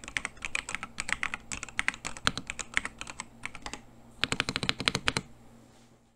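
Typing on a jamesdonkey RS2 gasket-mount mechanical keyboard fitted with linear switches: a quick run of key strokes, a short lull, then a fast flurry of keys before the typing stops near the end.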